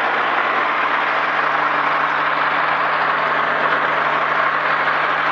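Zenith STOL CH 750's engine and propeller running steadily during the pre-flight run-up, heard from inside the cabin while the aircraft is held on its brakes.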